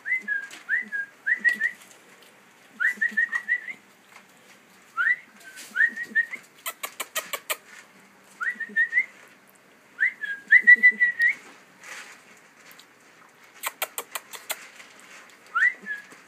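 Saint Bernard puppies squeaking and whining while they eat, in short high rising squeaks that come in quick clusters every second or two. A few rapid runs of sharp clicks, from the eating, come between them.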